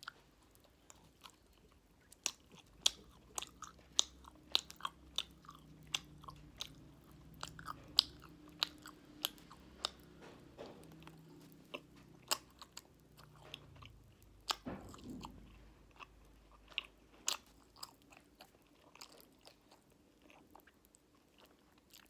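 Close-miked chewing of fruit jelly and popping candy: many sharp, irregular mouth clicks and crackles, several a second, with a longer, lower wet sound about two-thirds of the way through.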